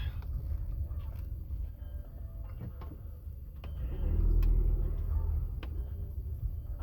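Low rumble of a car heard from inside the cabin, swelling about four seconds in, with a few faint scattered clicks.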